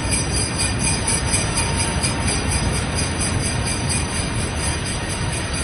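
An airliner's jet engines make a steady roar at takeoff power, with sleigh bells jingling over it.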